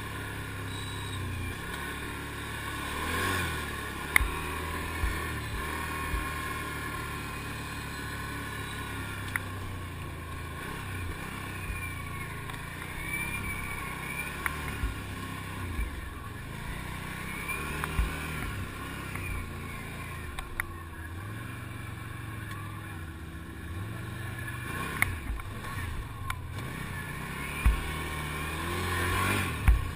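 ATV engine running at trail speed, its pitch rising and falling as the throttle is worked, with a few sharp knocks along the way.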